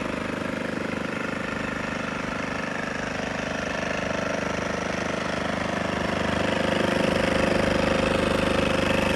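WEN 2350 inverter generator's small four-stroke engine idling steadily, freshly cold-started, with a quiet even hum. It grows slightly louder about two-thirds of the way through.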